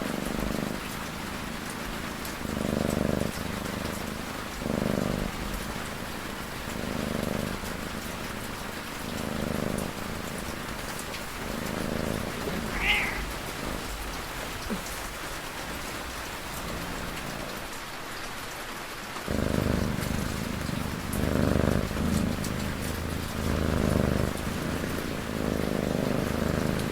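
Steady rain with a cat snoring over it, one slow breath about every two seconds; the snores stop for several seconds about halfway through, then come back. A short high chirp sounds just before the pause.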